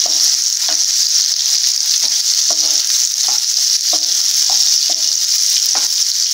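Nendran banana slices sizzling in hot ghee in a frying pan, with a steady frying hiss. A spatula scrapes and taps against the pan a little more than once a second as the slices are stirred.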